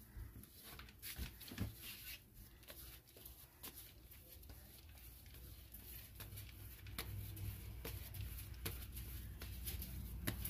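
Hands working a floured ball of bolillo bread dough on a plastic mat: faint soft pats and sticky handling noises, irregular and scattered, over a low steady room hum.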